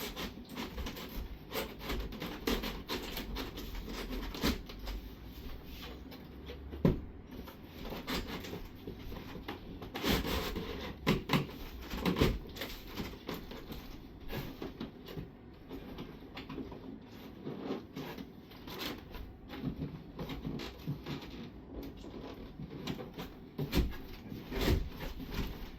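Cardboard shelf panels being slid and worked into the slots of a cardboard wardrobe, with rubbing and scraping of cardboard on cardboard and many irregular knocks and taps as the pieces are pushed and popped into place.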